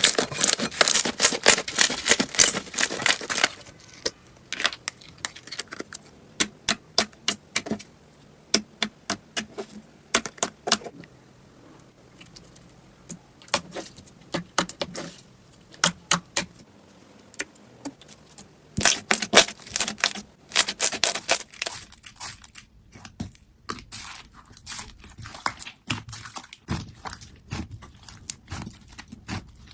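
Slime being squished and pressed by hand, making sharp clicking and popping crackles. They come in dense runs during the first few seconds and again about two-thirds of the way through, with sparser pops in between.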